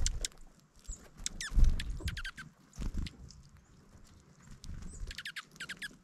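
Dark-eyed juncos at a seed feeder giving short, thin, high chirps in quick clusters, about a second and a half in, again around two seconds, and a burst near the end. Soft low taps and thumps of birds pecking and hopping in the seed close to the microphone come between them.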